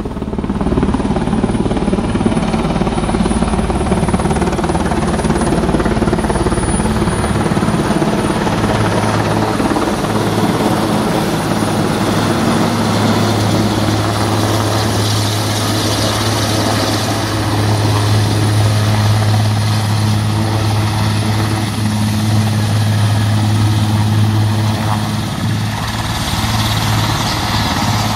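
Military transport helicopter descending and landing: steady, loud rotor noise with a strong deep hum and a thin high turbine whine that dips slightly near the end.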